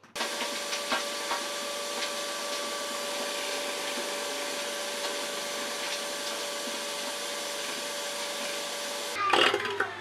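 Shop vacuum running steadily with a rushing hiss and a steady whine, sucking through a corrugated hose connected to the sander's dust port. It is switched off a little after nine seconds, its whine falling as the motor spins down, with a loud clatter of knocks as it stops.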